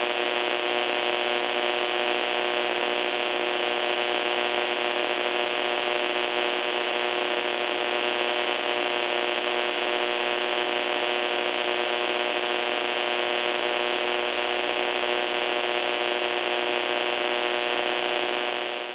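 AM radio static: a steady, fairly low-pitched hiss with a buzzing hum running through it, unchanging, dropping away right at the end.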